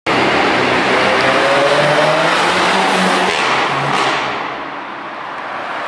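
Seat Leon Cupra 300's turbocharged 2.0-litre four-cylinder engine accelerating hard past the camera, its note rising, then fading as the car drives away.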